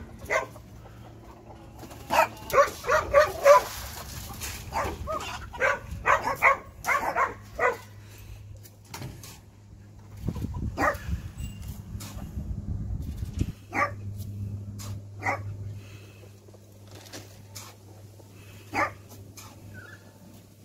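A dog barking: a quick run of barks for several seconds, then single barks every second or two.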